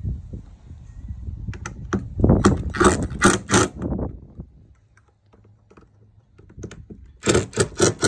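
Clattering and knocking from hands-on work at a motorhome's window frame, in a cluster of sharp strikes about two seconds in and a quick run of them near the end, over a low rumble of handling noise.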